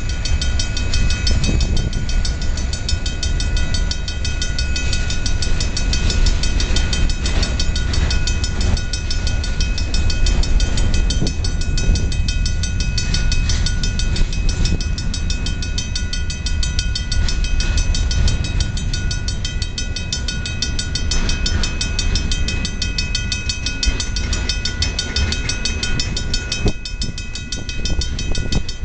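Freight cars of a long freight train rolling past: a steady rumble of steel wheels on the rails with scattered clicks as the wheels cross rail joints. A crossing bell rings rapidly over it.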